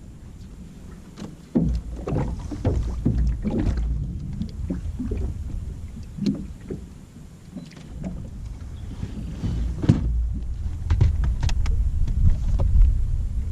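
Small fishing boat being handled on the water: a run of irregular knocks and bumps over a low rumble.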